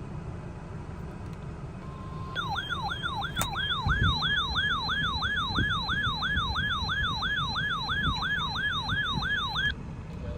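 A weather radio's electronic siren alarm sounding for a tornado warning. A short steady beep is followed by a tone sweeping quickly up and down, about three times a second, which stops abruptly after about seven seconds.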